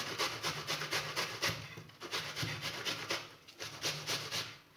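Onion being grated on the fine side of a hand grater: quick, rhythmic rasping strokes, about four to five a second, with two brief pauses.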